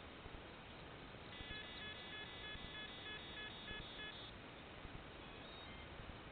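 A rapid run of short, high electronic beeps lasting about three seconds, starting a little over a second in, over a faint steady hiss.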